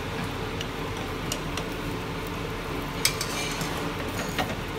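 Metal cooking utensils clicking against a frying pan a few times, the sharpest click about three seconds in, over a steady kitchen background noise.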